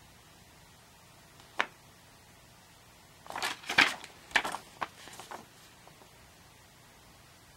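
Folded paper booklet being handled and opened out: a single short crackle about a second and a half in, then a burst of paper rustling and crinkling from about three to five and a half seconds in.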